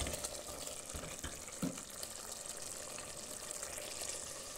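Thick tripe stew bubbling as it simmers in an aluminium pot, giving a steady bubbling hiss, with a wooden spoon scraping through it at first.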